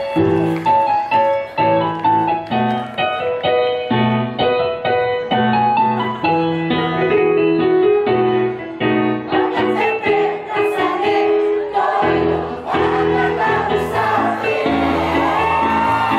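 Keyboard playing steady chords, then a mixed choir comes in singing over it about ten seconds in.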